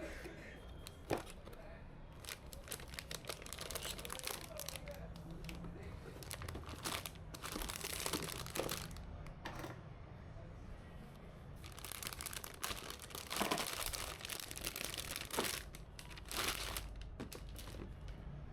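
Packaging being handled, crinkling and rustling in irregular spells, with scattered clicks and taps, as PC parts are unpacked.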